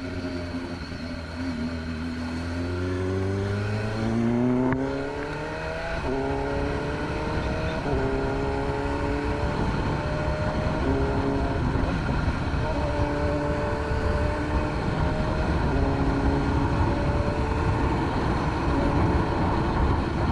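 BMW S1000RR's inline-four engine accelerating, its pitch climbing then dropping sharply at a gear change about five seconds in. It then runs on through further shifts at varying engine speed.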